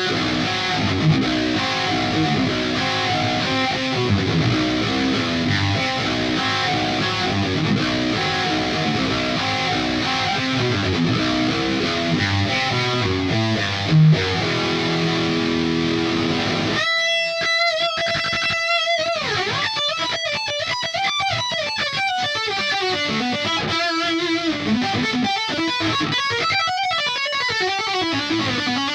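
Sterling JP70D seven-string electric guitar played through a Line 6 POD HD500 multi-effects unit. Dense, fast riffing fills roughly the first half. Then a single note is held, followed by slower single-note lead lines with bent notes.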